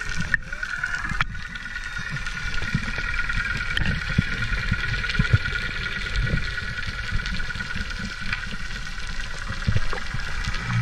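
Muffled underwater sound picked up by a spearfisher's camera while swimming over a reef: irregular low rumbling and thuds of water moving against the camera, under a steady, slightly wavering high whine.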